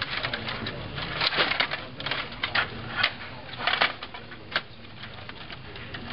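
Table hockey game in fast play: irregular rapid clicking and rattling of the player rods and plastic figures, with sharp knocks of the puck against figures and boards.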